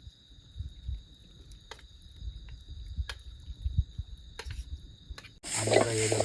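Crickets trilling steadily in the night, with a low rumble and a few sharp clicks. About five seconds in it cuts abruptly to sausages sizzling in a frying pan.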